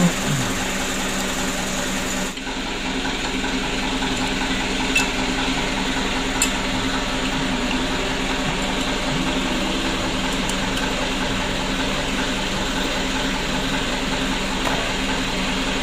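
Steady machine hum in a workshop, with a few faint light metal clicks from small turbocharger parts being handled and fitted by hand.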